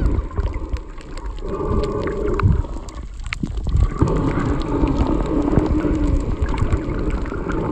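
Muffled underwater noise heard through a submerged phone microphone: low water rumble and gurgling with wavering murmurs and scattered sharp clicks, briefly quieter a little after the middle.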